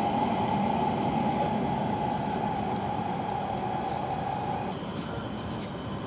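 Steady rumble of a Shinkansen station platform, with a band of hum that stops about three-quarters of the way through, when a thin high steady whine begins.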